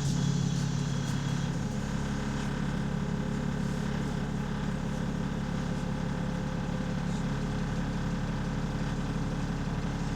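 Diesel engine of London bus DW486 running steadily, heard from on board, with an even low pulsing; the bus has an exhaust leak.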